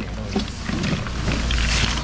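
Busy market background: a low steady rumble under a noisy wash with faint voices; the rumble grows louder about a second in.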